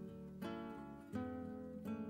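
Quiet background music of acoustic guitar, with a new plucked note or chord struck three times.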